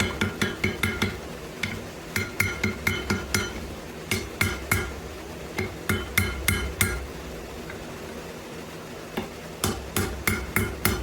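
Hand hammer blows on hot wrought iron at the anvil, about four a second in several short runs, each blow ringing briefly. The hammering pauses for about two seconds past the middle, then starts again.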